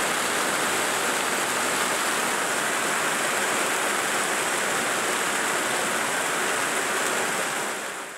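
Heavy rain falling steadily on tree leaves, a dense even hiss that fades away near the end.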